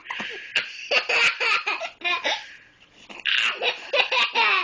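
Young child laughing hard in repeated short bursts of high-pitched giggles, amused by someone's hiccups.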